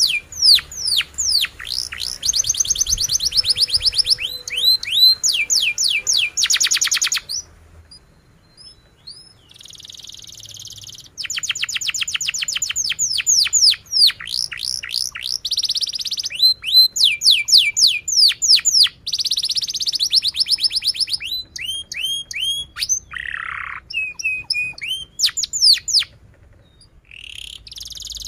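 Domestic canary singing a long song of rapid, repeated downward-sweeping notes and fast trills. The song drops to a few soft notes about seven seconds in, then picks up again after about four seconds.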